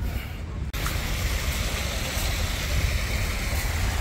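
Shallow water running along a tiled channel of a water feature: a steady rushing hiss that starts abruptly about a second in, over a constant low rumble.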